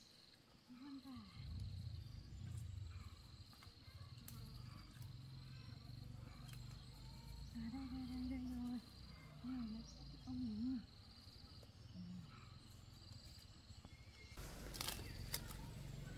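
Steady high insect trill, like a cricket, over the soft rustle of footsteps through low garden plants, with a few brief faint voice sounds; a closer rustle of leaves near the end.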